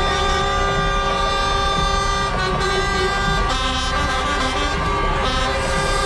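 Several truck air horns sounding together in a long, steady chord over a low rumble, with the mix of horn notes shifting about halfway through.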